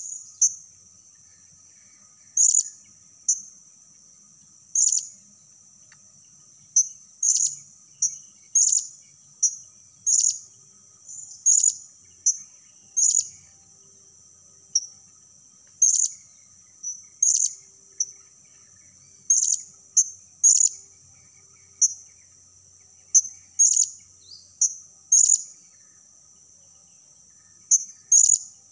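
Blue-crowned hanging parrot (serindit) lure calls: short, sharp, high-pitched notes repeated every second or two, some in quick pairs. A steady high insect drone runs beneath.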